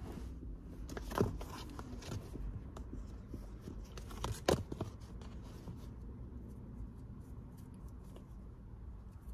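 Cardboard Apple Watch boxes handled and slid against one another: light scrapes and small clicks, with two louder knocks, about a second in and about four and a half seconds in, over a low steady rumble.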